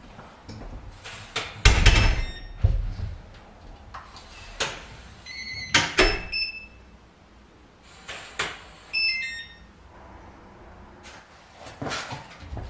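An apartment front door with a digital door lock. The handle and latch click and the door thuds shut about two seconds in. The electronic lock chirps with short high beeps about halfway through and again a few seconds later, and the latch clicks as the door is opened again near the end.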